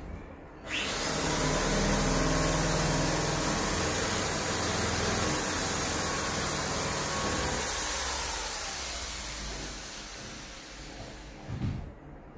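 A loud, steady rushing noise starts suddenly about a second in and fades away over the last few seconds.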